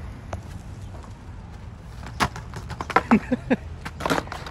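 Longboard dropped onto asphalt: one loud clack about two seconds in, then a quick run of knocks from the board and wheels a second later, and another knock near the end.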